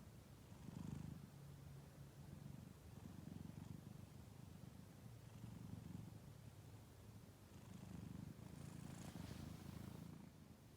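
Domestic cat purring softly and steadily, the low rumble swelling and easing every couple of seconds.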